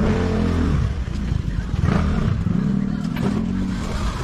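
Small motorbike engine on the road, its pitch rising and falling twice as it revs, with a few faint clicks of hand tools on metal.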